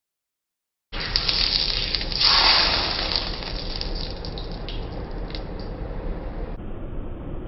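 Hot oil sizzling on a perforated metal grill pan: a steady hiss that starts about a second in and swells louder about two seconds in, with a few light clicks.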